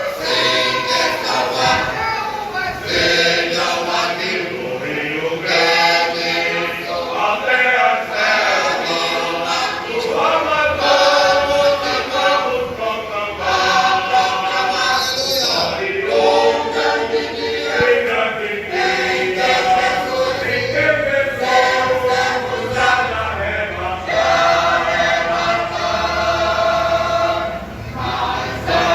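Mixed church choir singing a hymn in several parts, sustained phrases with faint low accompaniment underneath.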